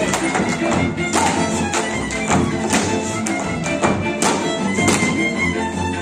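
Hungarian folk dance music led by a fiddle, with sharp stamps of the dancers' boots on the wooden stage about twice a second.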